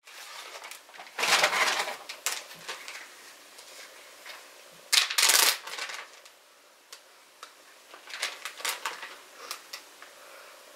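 A plastic Ziploc bag being handled and opened: two loud bursts of crinkling, then a run of small crackles and clicks near the end.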